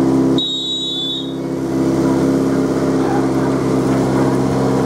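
An engine running steadily at a constant speed. Just under half a second in, a clear high steady tone sounds for about a second.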